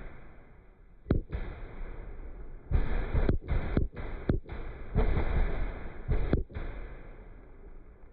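Large aerial firework shells bursting: a series of deep booms, about six, heaviest in the low end, each trailing off into rumble.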